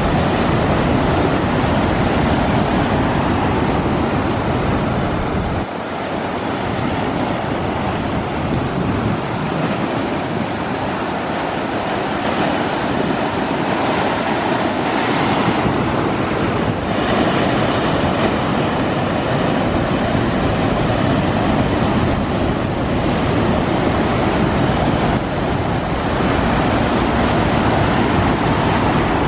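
Heavy surf breaking and washing onto the shore, driven by typhoon swell, with strong wind buffeting the microphone in a low rumble that eases briefly about six seconds in.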